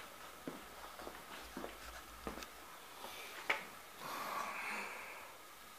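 Faint footsteps and camera-handling clicks on a concrete garage floor, with one sharper click about three and a half seconds in and a soft hiss lasting about a second just after.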